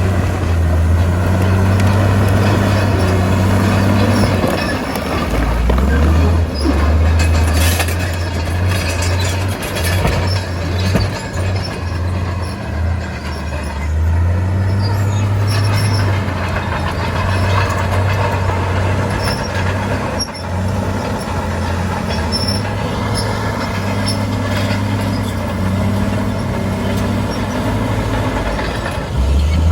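Diesel engine of heavy earthmoving machinery running, its pitch dropping and rising as the load changes, with a few sharp knocks between about eight and eleven seconds in.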